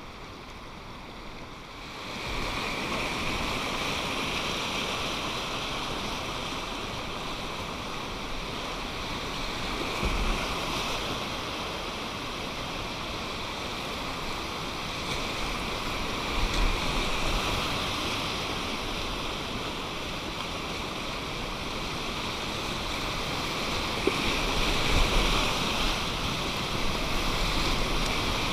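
Whitewater river rapids rushing, a steady noise that gets louder about two seconds in. A few short low thumps come now and then.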